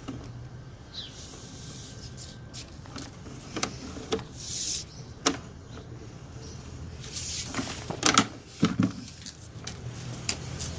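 Sewer inspection camera being pushed along a sewer line: irregular knocks, clicks and short scrapes over a low steady hum, with a cluster of louder knocks about eight seconds in.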